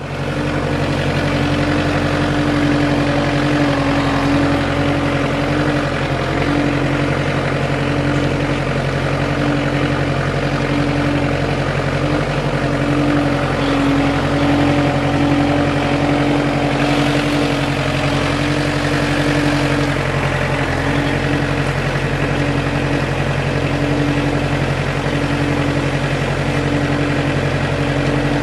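Diesel engine of a track-converted Bad Boy zero-turn mower running steadily at idle while the machine drives and turns at idle speed. A higher hum rises and falls every second or so over the engine's steady note.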